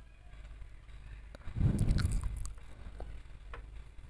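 Cooking oil poured into an empty aluminium kadai, with a short rustling bump about one and a half seconds in over a low steady hum.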